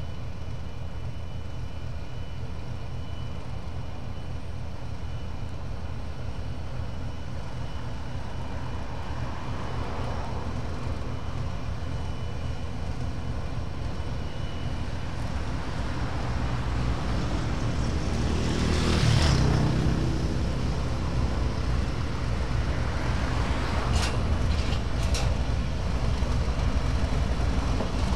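Diesel locomotive engine rumbling low and steadily as the locomotive creeps up on the adjacent track, growing louder as it nears. About two-thirds of the way through there is a brief loud rush of noise, and a few sharp clicks follow near the end.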